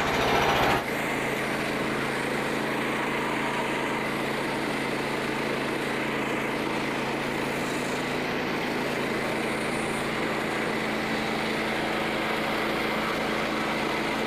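Frontier OS27 portable band sawmill running steadily, its engine holding a constant pitch over the whir of the band blade. A louder, fuller sound cuts off about a second in, and the mill then runs on evenly.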